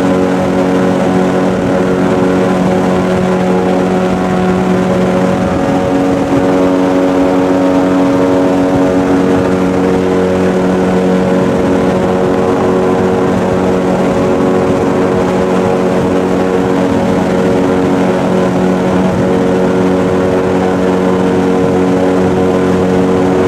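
Airboat engine and air propeller running at cruising speed: a loud, steady drone.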